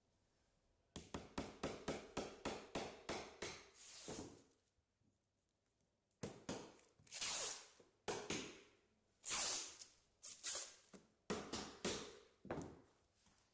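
Hammer driving poly pins into kerb edge trim to fix it along a flat roof edge. A quick run of about a dozen sharp strikes comes about three a second, then after a pause there are several shorter runs of strikes.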